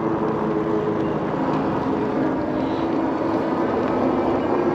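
Steady riding noise from a moving e-bike: wind and tyre rumble, with a faint steady hum underneath.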